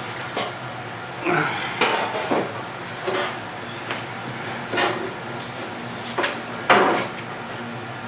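Metal clanks and clinks as the Wheel Horse garden tractor's steel rear deck lid is handled and set back in place: a string of separate knocks and rattles, the loudest near the end.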